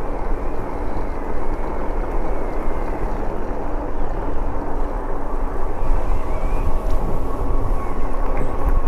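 Wind buffeting the microphone and tyre noise while riding an e-bike, a steady rumble with a faint steady whine under it.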